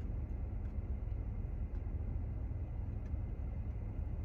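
Steady low rumble of an idling car, heard from inside its cabin, with a few faint clicks.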